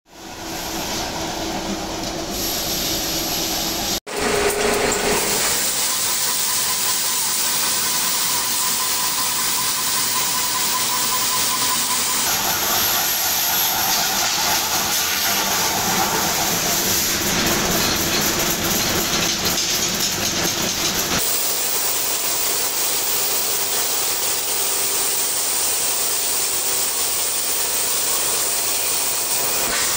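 Steady hissing machinery noise in a metal workshop, changing abruptly in tone about 4, 12 and 21 seconds in.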